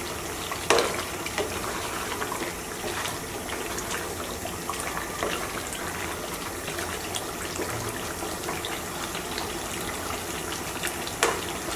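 Steady hissing from a pot of beef simmering in its own juices on the stove, with a few light knocks.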